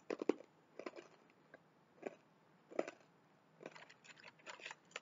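Crunchy chewing of a crisp sesame stick snack: irregular sharp crunches, several close together and loudest in the first half-second, then spaced out about every half to one second.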